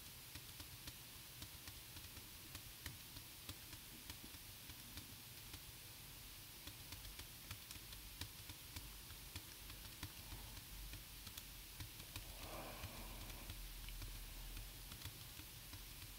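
Faint, repeated taps on computer keyboard keys, a few a second, stepping an emulator through code one instruction at a time, over a steady low electrical hum.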